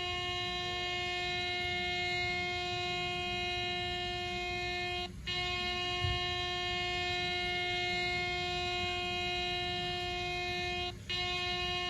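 Air horn blowing one steady note in long, unbroken blasts, cut by a brief gap about five seconds in and again near the end, over a low rumble.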